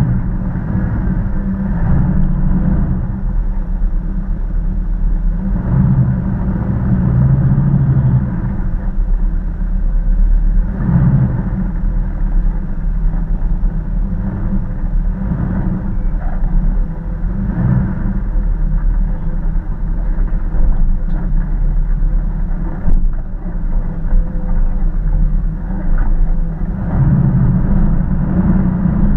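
Jeep Wrangler's engine running at low revs as it crawls over a rough dirt trail, a steady low rumble that swells now and then.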